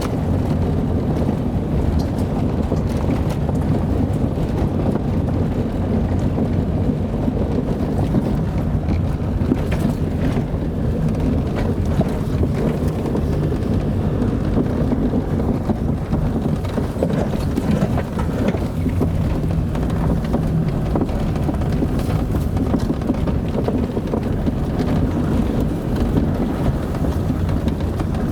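Car driving along: steady engine hum and road rumble, with a few faint knocks and clicks.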